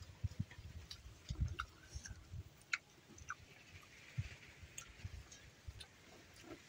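Faint sounds of a person eating rice by hand: chewing and fingers working rice on a plate, heard as soft irregular low knocks and small clicks.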